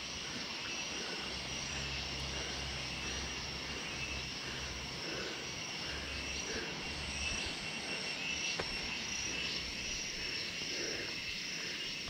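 Steady chorus of insects shrilling in tropical forest, with a low steady rumble underneath.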